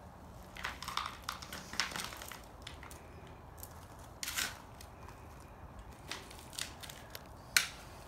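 Steel shovel blade digging and scraping in dry dirt and gravel: irregular crunching scrapes, several in the first two seconds and the sharpest one near the end.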